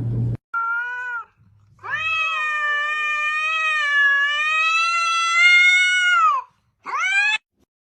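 A domestic cat meowing three times: a short meow, then one long drawn-out meow, then a short rising meow near the end.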